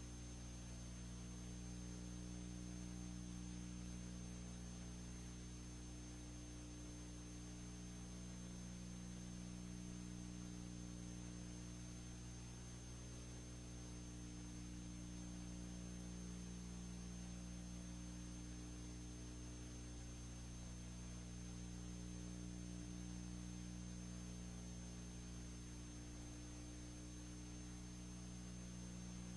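Steady electrical hum with hiss and a faint high whine, unchanging throughout: an empty soundtrack carrying only recording or playback equipment noise.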